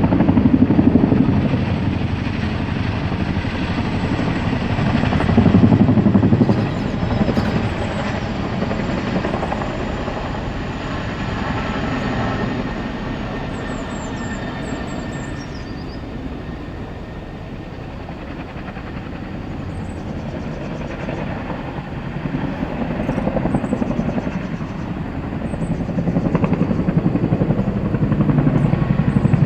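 Boeing CH-47 Chinook tandem-rotor helicopter circling overhead, its heavy rotor beat loud at first, fading about halfway through, then growing louder again near the end as it comes back around.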